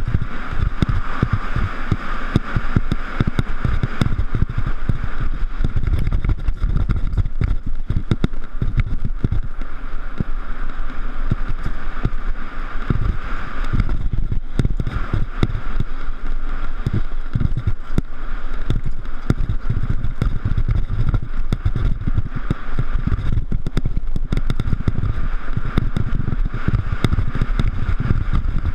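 Mountain bike ridden over rough ground: continuous heavy rumble and wind buffeting on the microphone, with frequent knocks and rattles from bumps.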